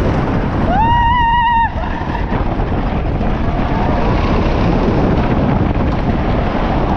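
Wooden roller coaster train running fast along its track, its rumble mixed with wind rushing over the microphone. About a second in, a rider lets out a high yell that rises and holds for about a second.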